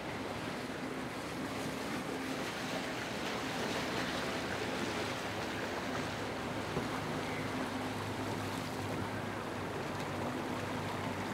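Harbour water lapping against moored yachts' hulls as a steady wash of noise, with a faint steady low hum underneath.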